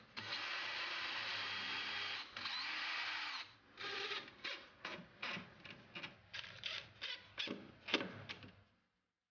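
Power drill running: a steady whir for about three and a half seconds with one short break, then a string of short bursts, about two a second, that stop shortly before the end.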